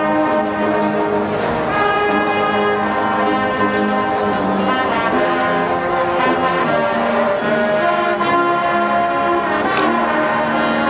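High school marching band playing its field show: brass holding full sustained chords that shift every second or two, with sharp percussion hits about four seconds in and again near the end.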